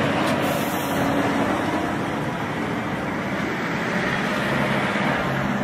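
A road vehicle driving past with steady engine and tyre noise.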